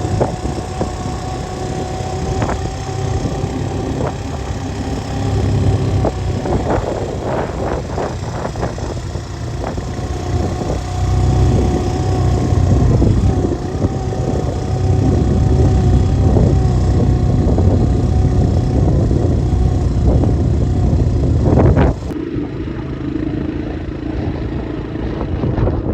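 Vehicle engine running steadily while driving, with a low rumble and a steady hum; a cluster of knocks and rattles comes about six to nine seconds in, and the sound changes abruptly a few seconds before the end.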